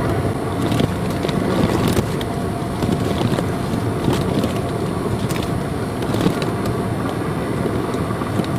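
Steady low rumbling noise like a running vehicle, with scattered light clicks and crackles.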